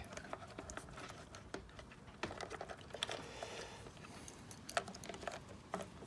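Scattered clicks and light taps of small plastic dishwasher parts and wire connectors being handled and pushed into place, with one sharper click about three quarters of the way through.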